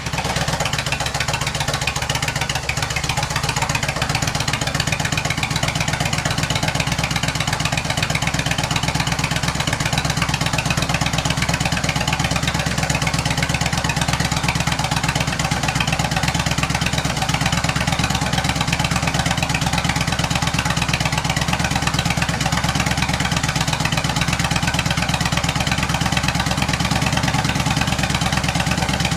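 Yamaha XVS 1300's V-twin idling steadily through short drag pipes that have baffle inserts, measured at about 88 dB from 50 cm.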